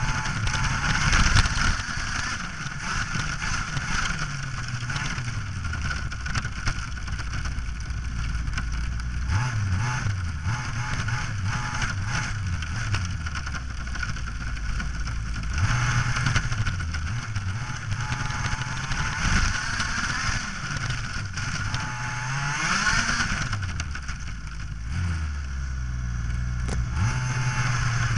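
Radio-controlled vehicle's motor running and rising and falling in pitch as the vehicle speeds up and slows down, with a rushing noise over it as it drives through tall grass.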